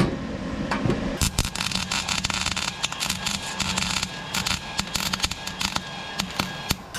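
MIG welding arc from an Eastwood MIG 175 welder laying a bead on a steel hitch receiver: dense, irregular crackling that starts about a second in and keeps on steadily.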